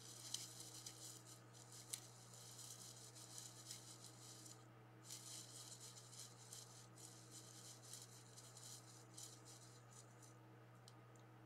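Faint crackling rustle of dry leaf litter as a raccoon roots through it, in two stretches with a brief pause just under halfway, with a few sharper clicks, and stopping near the end. A steady low electrical hum runs underneath.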